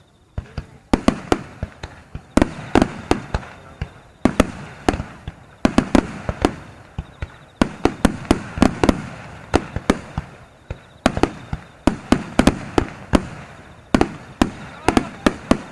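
Aerial firework shells bursting in a rapid barrage: dozens of sharp booms in quick clusters, each followed by a rolling echo.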